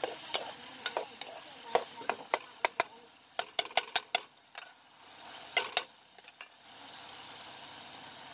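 A metal ladle stirring chicken karahi in a metal karahi, knocking and scraping against the pan in sharp, irregular clicks, over the steady sizzle of the cooking gravy.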